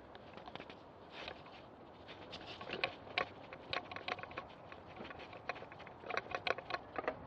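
Mountain bike rattling and clicking as it rolls slowly over a bumpy dirt singletrack: irregular knocks and clatters, few at first and more frequent from about two seconds in.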